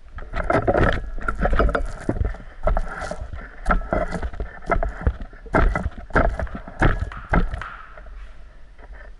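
Paint roller loaded with white paint being rolled back and forth in a plastic paint tray: repeated wet rolling strokes, roughly one or two a second, easing off near the end.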